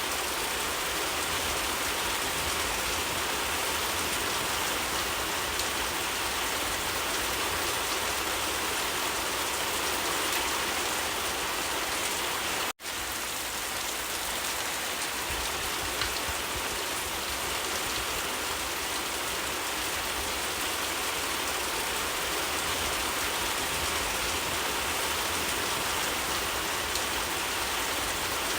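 Steady rain falling, an even, dense hiss with scattered individual drops. The sound drops out for an instant about thirteen seconds in.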